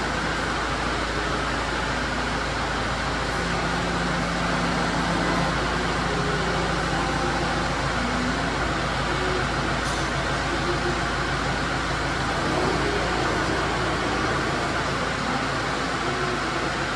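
Kubota M5-111D tractor's four-cylinder turbo diesel engine running steadily while the tractor manoeuvres and works its front loader.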